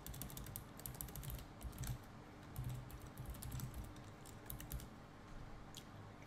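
Computer keyboard being typed on, in quick runs of keystrokes with short pauses between them and a lone click near the end.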